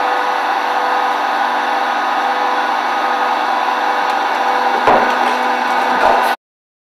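Hydraulic scrap-metal baler running as its lid presses a steel oil drum flat: a steady drone from the hydraulic power unit with a held hum, and two metal knocks about five and six seconds in. The sound cuts off abruptly near the end.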